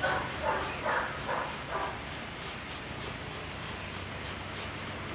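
A dog barking in a quick series of about two barks a second, stopping about two seconds in, over a steady background hiss.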